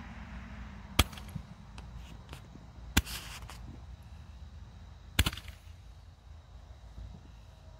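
Consumer fireworks shots going off as red stars climb with spark trails: three sharp pops about two seconds apart, the last a quick double pop, with a short crackle after the second.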